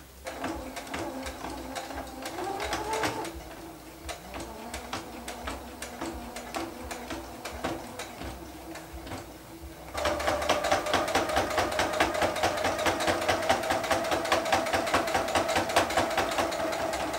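Brother computerized sewing machine stitching through six layers of fabric and batting. It runs slower and quieter for about the first ten seconds, then speeds up and gets louder, with a steady motor whine under rapid needle strokes, going through the thick layers easily.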